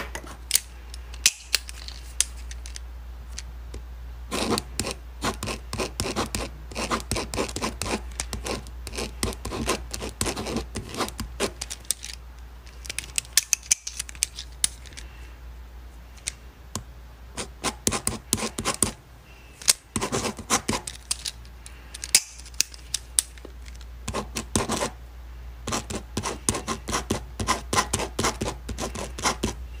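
Handwriting on paper: a pen scratching out quick short strokes in bursts, with brief pauses between words, over a faint steady low hum.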